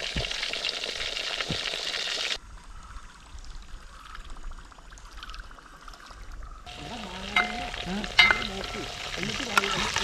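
A whole marinated red snapper sizzling as it fries in hot coconut oil in a wide metal pan. The sizzle drops away for a few seconds after about two seconds in, then returns, with a few sharp clinks of a steel spatula against the pan near the end.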